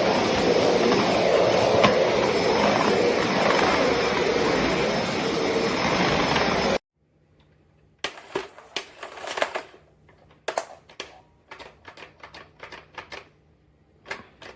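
Eureka Whirlwind NEN110C bagless canister vacuum cleaner running steadily, cutting off abruptly about seven seconds in. It is followed by an irregular string of clicks and knocks from parts being handled, over a faint low hum.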